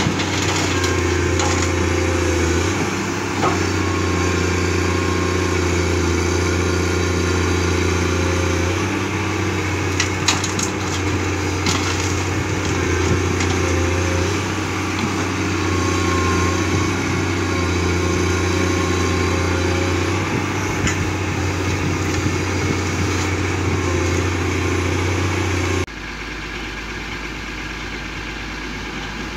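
Komatsu PC210 excavator's diesel engine running under load as it works, its pitch rising and falling every few seconds as the hydraulics dig and swing, with a few knocks about ten seconds in. Near the end the sound drops suddenly to a quieter, steadier running.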